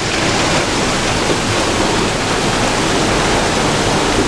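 Lake water rushing through an opened weir and pouring down into the drain structure beneath a metal grate: a loud, steady rush as the lake is let down.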